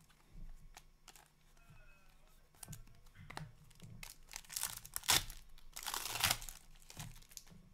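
Foil trading-card pack crinkling and tearing as it is ripped open, in two loud crackling spells a little past halfway, after a few light clicks of cards being handled.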